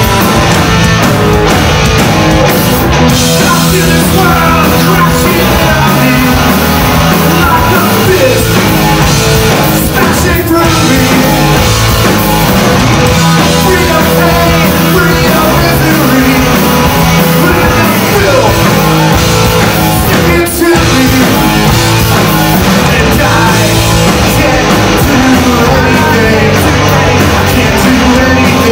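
Live rock band playing loud, with electric guitar, bass and drums behind a vocalist singing into a microphone.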